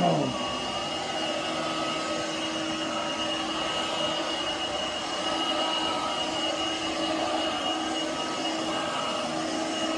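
Cordless stick vacuum running steadily, a motor whine with a high whistle over it.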